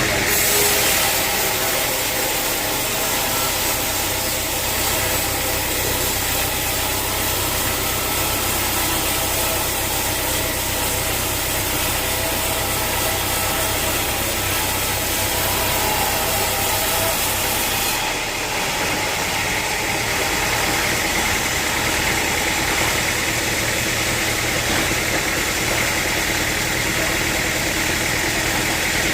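Sawmill machinery running steadily, with an engine hum under a constant hiss; the high part of the sound shifts about two-thirds of the way through.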